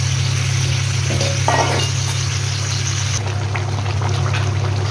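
Yogurt-marinated chicken pieces sizzling steadily as they fry in hot ghee and oil in a kadai, over a steady low hum.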